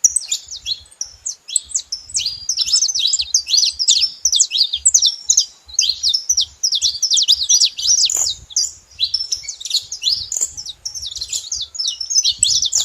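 A group of saffron finches chirping together: a dense, unbroken chatter of quick, high, overlapping notes.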